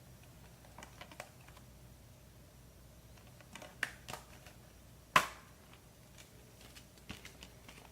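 Scattered light clicks and taps of a metal steelbook case and Blu-ray discs being handled, with one sharp snap about five seconds in.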